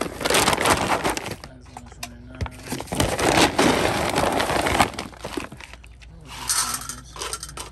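A plastic bag of dry dog food rustling and crinkling as it is handled, with kibble rattling as it is scooped out. The sound comes in three bursts, near the start, around the middle and near the end.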